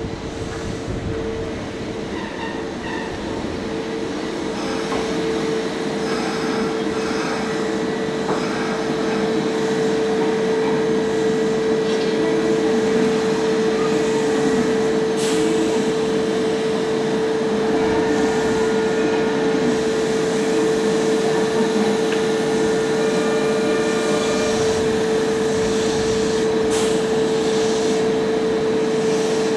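Kintetsu electric commuter train drawing into the platform and coming to a stand, then standing there. A steady mid-pitched hum runs throughout, and the running noise grows over the first ten seconds before holding level.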